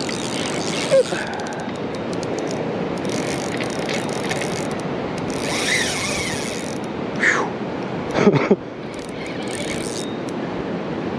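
Fishing reel being cranked, in runs of fine ticking, over the steady rush of a river. Two short falling whistle-like sounds come about 7 and 8 seconds in.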